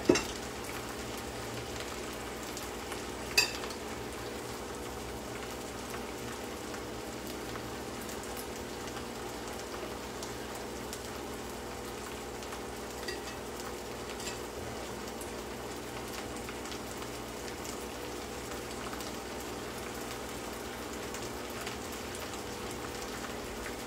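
Lamb offal sizzling steadily in a hot pan as the white wine cooks off, with a sharp knock about three and a half seconds in.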